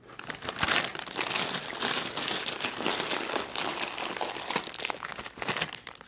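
Potato chip bag crinkling steadily as it is handled, for about six seconds.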